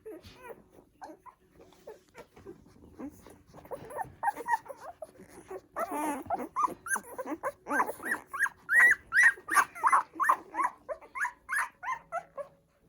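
Newborn poodle puppies squeaking and whining while they nurse, short high cries that start about four seconds in and come quickly and loudly after that; the cries of puppies pushed off or unable to reach a teat.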